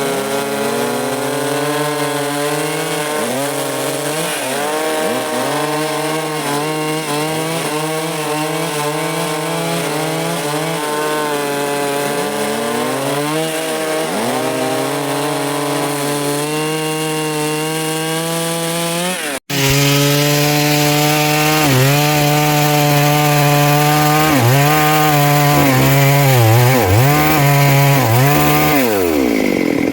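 Stihl MS382 two-stroke chainsaw with a 24-inch bar, cutting through a big log. The engine pitch dips again and again under load and picks back up. There is a brief break about two-thirds of the way in, after which it is louder, and the engine winds down near the end.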